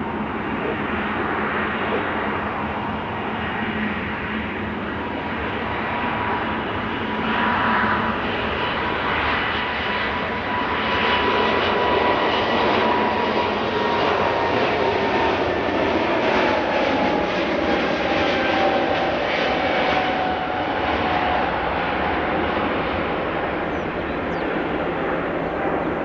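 Airbus A320neo airliner's jet engines at takeoff power: a steady roar with a whining tone that slowly falls in pitch as the plane passes, loudest around the middle.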